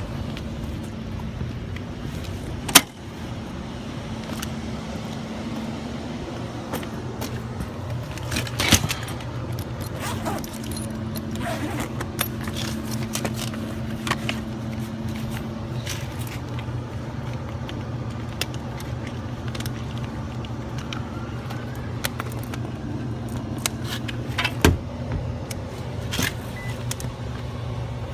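Steady low hum of a running rooftop HVAC unit, with scattered clicks and jangling of tools or keys being handled; one sharp click about three seconds in and another near the end.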